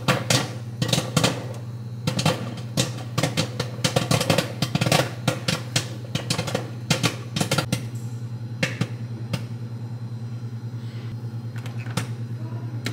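Orville Redenbacher's kettle corn microwave popcorn popping inside a running microwave oven, over the oven's steady hum. The pops come thick and fast at first, then thin out to occasional pops after about eight seconds, the slowing that means the popcorn is done and ready to take out.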